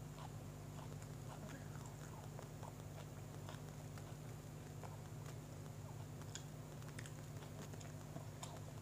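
A person chewing a mouthful of sandwich with closed lips: faint, irregular wet mouth clicks over a steady low hum.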